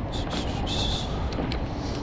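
Engine running steadily with a low rumble, with light metallic clinks and rattles in the first second and a few sharp ticks later on.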